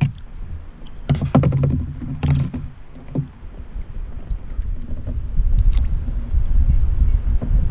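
Sounds of a fishing kayak on the water: a few sharp knocks against the boat in the first few seconds, over a steady low rumble.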